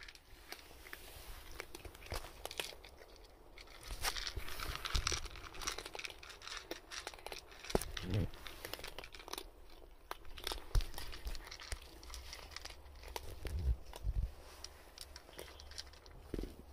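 Cats eating dry kibble from a plate: irregular crunching and small clicks, busiest from about four seconds in, with a few dull bumps partway through.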